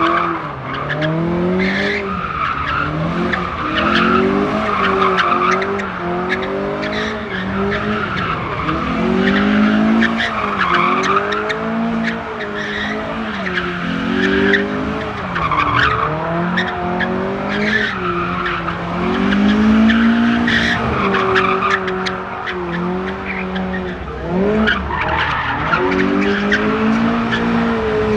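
A car engine revving up and falling back over and over as the car drifts, with the tyres squealing in bursts.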